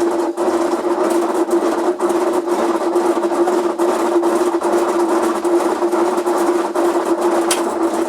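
Electrolux LF90 top-loading washing machine on its spin cycle, its transmission (mechanism) running with a very loud steady hum, grinding and rapid knocking. The noise is the sign of a blown mechanism that has to be rebuilt.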